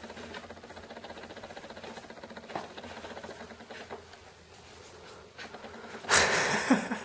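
Camera lens vibration-reduction (VR) motor whirring with a fine, even ripple, under light scuffling of kittens' paws on a wooden floor. About six seconds in comes a loud noisy burst lasting just under a second.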